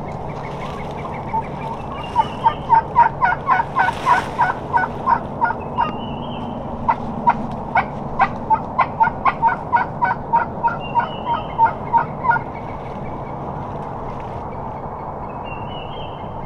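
Turkey yelping in a long run of sharp, evenly spaced notes, about four or five a second, with a short break partway through. It stops about twelve seconds in.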